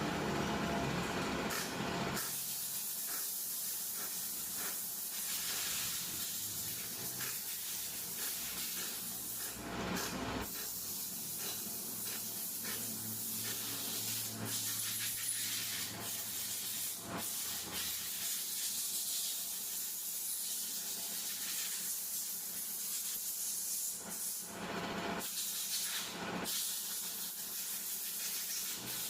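Steady hissing noise, strongest in the high range, broken by a few short clicks or knocks.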